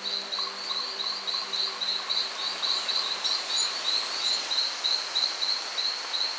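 Insect chirping in a steady high-pitched rhythm of about four pulses a second, over a soft forest hiss.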